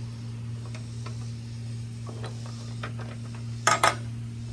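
Light metallic ticks and clinks of an open-end wrench working a Rugged Ridge XHD hood catch's adjuster and jam nut, with two sharper metal clicks close together near the end. A steady low hum runs underneath.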